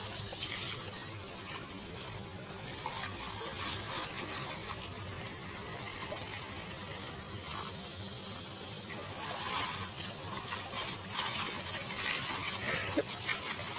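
Steady hissing spray of a water jet pattering onto a lawn, with irregular splashes as a dog snaps and bites at the stream.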